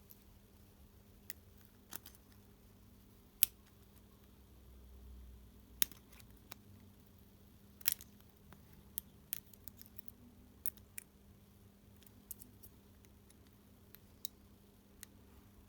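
Irregular small clicks and light taps of plastic parts and small hand tools being handled while a cordless work light is taken apart, about a dozen in all, over a faint steady hum.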